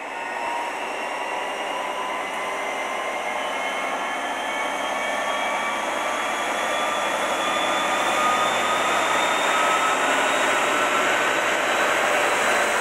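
Mainline diesel locomotive working at the head of a passenger train, its engine noise getting gradually louder with a whine that rises slowly in pitch.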